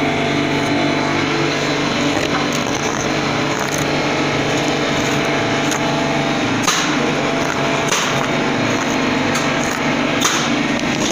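A steady mechanical hum, like a running engine or machine, with a few light taps past the middle.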